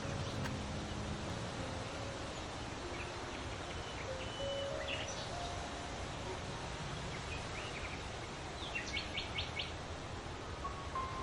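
Several wild birds calling and singing in short phrases over a steady background hiss, with a quick run of about five sharp notes about nine seconds in.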